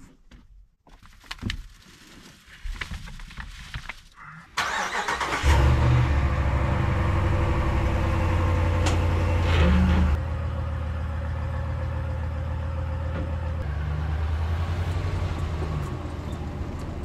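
A few light knocks and clicks, then a truck engine cranks and starts about four and a half seconds in. It runs at a higher speed at first, then drops to a steadier, lower idle about ten seconds in.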